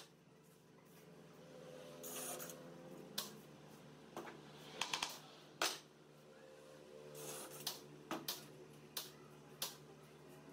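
Scattered light clicks and knocks at irregular intervals, like small objects being handled, over a faint steady low hum.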